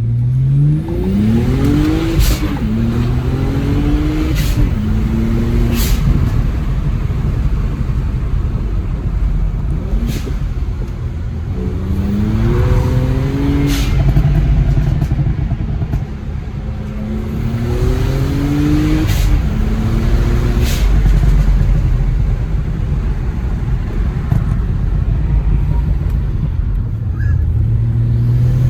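Tuned BMW 335xi's N54 twin-turbo inline-six accelerating hard through the gears. Its pitch climbs and drops back at each upshift over several full-throttle pulls, with short sharp cracks at several of the shifts.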